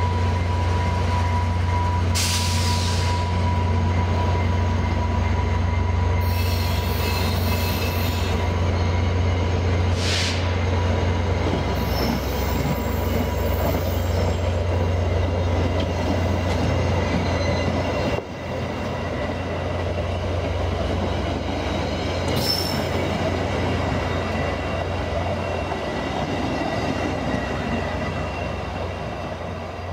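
VIA Rail F40PH-2 diesel locomotive and its passenger coaches rolling slowly past, the engine giving a steady low drone. The wheels squeal on the rails in several short, high screeches.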